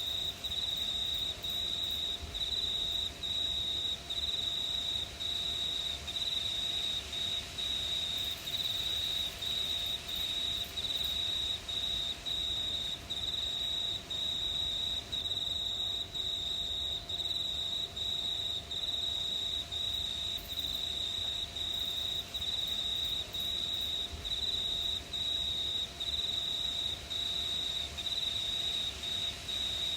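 Crickets chirping at night: a high, steady trill broken by brief, regular pauses.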